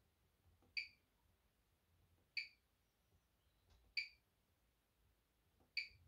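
Bosch Serie 6 washing machine control panel beeping once at each button press, four short electronic beeps about a second and a half apart, each just after a faint key click, as the wash temperature setting is stepped through.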